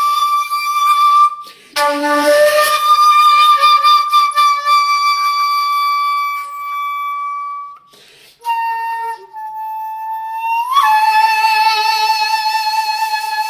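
Metal shakuhachi playing three long held notes, each separated by a brief breath pause; the second starts with a breathy attack, and the last bends, flicks sharply upward about ten seconds in, then settles with a slight vibrato.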